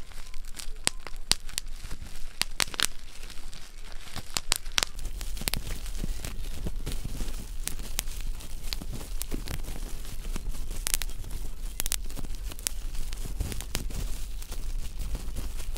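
Bubble wrap being squeezed and crinkled, with many sharp pops at irregular intervals.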